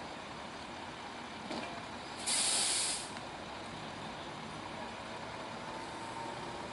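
A fire engine's air brakes let out one short, loud hiss of air a little over two seconds in, over the steady running of the idling fire apparatus.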